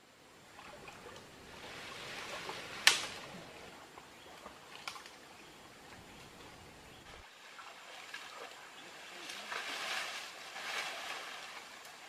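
Water sloshing and splashing as people wade and handle a fishing net in a shallow muddy stream, coming in swells. A single sharp click about three seconds in is the loudest sound.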